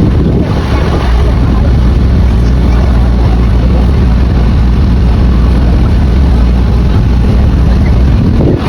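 Fireworks display going off in a dense barrage, heard as a loud, continuous low rumble that overloads the microphone.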